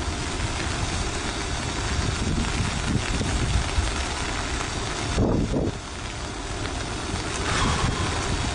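Steady low rumble and rush of an approaching debris flow, rock and mud moving down a gravel channel, mixed with wind noise on the microphone. A brief louder surge comes about five seconds in.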